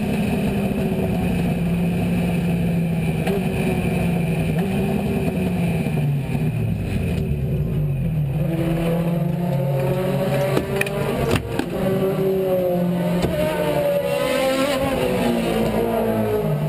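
Aussie Racing Car's four-cylinder Yamaha engine heard from inside the cabin, running on and off the throttle with its note rising and falling in steps. A couple of sharp knocks come about two-thirds of the way through.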